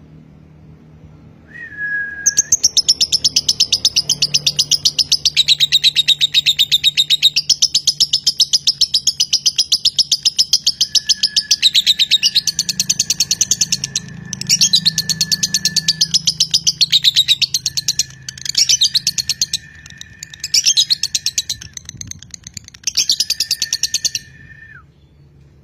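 A Fischer's lovebird sings a long, rapid chattering trill (ngekek) of the 'konslet' type. A steady whistled note runs under it from about halfway, and in the last third the trill breaks into shorter bursts before stopping.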